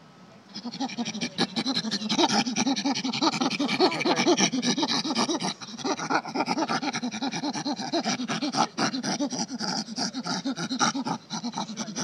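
Recorded chimpanzee food barks played back from an exhibit's push-button sound panel: a long run of rapid, excited barks starting about half a second in. In chimps this call means one has found a favourite food.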